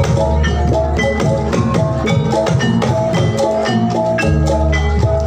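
Javanese gamelan music for a jathilan dance, played loud through a sound system: struck bronze metallophones ringing out repeated notes over drums and a heavy bass.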